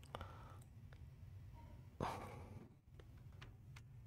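Quiet room tone with a steady low hum and a few faint clicks; about two seconds in, a person breathes out into the microphone, a short sigh-like exhale that fades away.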